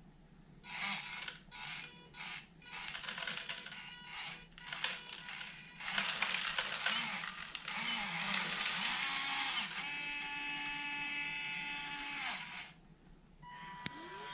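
Electric linear servos and small motors of an RC excavator whining as the arm and bucket move, the pitch rising and falling. Midway, small wooden blocks clatter into a plastic dump-truck bed as the bucket tips its load. A steady whine follows and stops, then there is a click and a new whine near the end.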